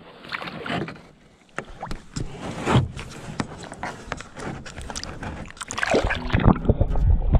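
Lake water splashing and sloshing around a hand as a largemouth bass is lowered in and released beside the canoe. About six seconds in, the sound turns to a louder muffled rumbling as the microphone goes under the water.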